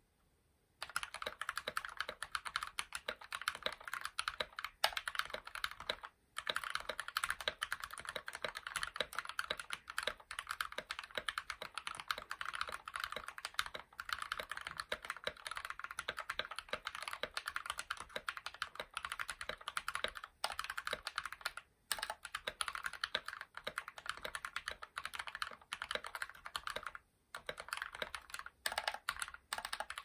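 Fast, continuous typing on a Kemove Snowfox 61 mechanical keyboard fitted with lubed and filmed Banana Split linear switches: a dense run of key clacks starting about a second in, broken by a few brief pauses.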